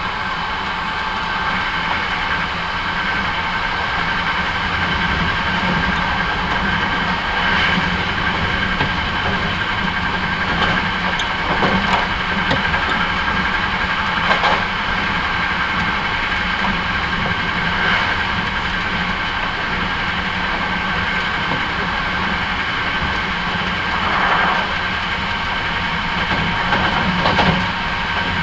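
Hankyu 9300 series electric train running at steady speed, heard from inside the carriage. A constant rumble of wheels on rail carries a steady whine, with a handful of brief clacks from the track spaced a few seconds apart.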